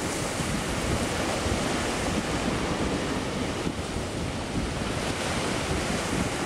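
Sea surf washing in at the shoreline, a steady rush with wind blowing across the microphone.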